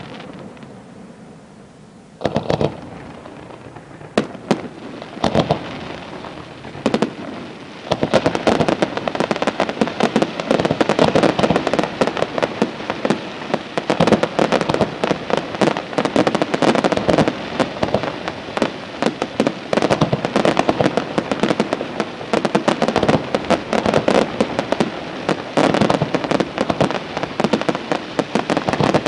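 Aerial fireworks bursting: a few separate bangs in the first seconds, then from about eight seconds in a dense, continuous crackle of rapid pops.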